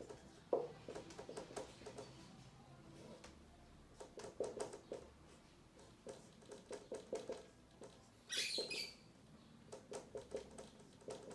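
Marker squeaking and tapping on a whiteboard while writing out an equation, in short clusters of quick squeaks, with a brief hiss about two-thirds of the way through.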